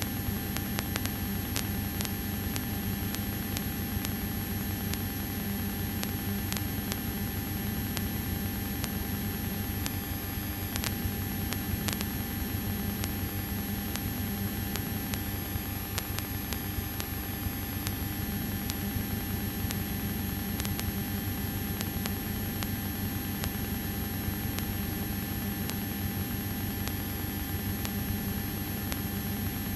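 Light aircraft's piston engine idling steadily, heard from inside the cockpit, with a constant hum under it.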